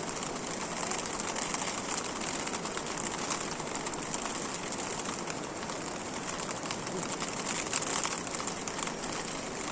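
Rain falling steadily, a dense even patter of many small drops.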